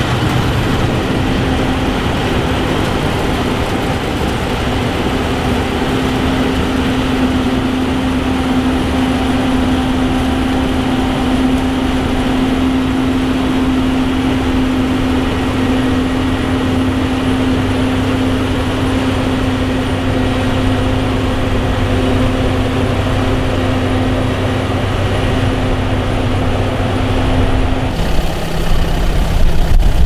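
Claas Lexion combine harvester running steadily at working revs with a constant hum. About two seconds before the end it gives way to a louder, deeper tractor engine.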